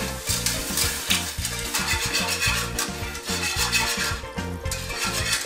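Wire whisk stirring milk into roux in a metal pot, over background music with a steady beat.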